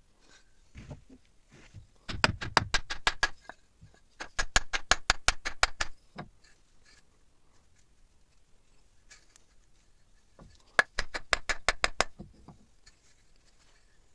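Rapid series of hard knocks, in three bursts of about eight to ten strikes each, seating a new wooden handle into the eye of an axe head. Each strike has a faint metallic ring.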